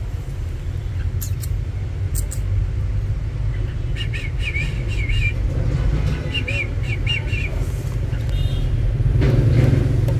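Steady low rumble of background traffic, with a small bird chirping in two short runs of quick notes, about four and about six seconds in.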